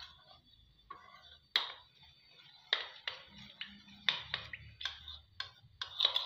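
Metal spoon clinking against a ceramic bowl while stirring custard powder into milk, irregular taps about two a second. The powder is being mixed smooth so that no lumps remain.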